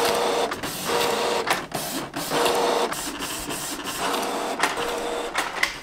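Canon inkjet printer printing photos: the print head runs in repeated passes about a second long, each with a faint whine, with clicks in between.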